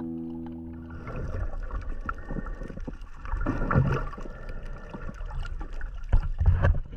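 Small boat on the water: uneven splashing and sloshing with scattered small knocks and a faint steady hum.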